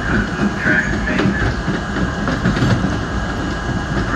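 R32 subway train running at speed along the track, heard from inside the front car: a steady rumble of wheels on rails with clicks over the rail joints and a few short high-pitched squeals in the first second or so.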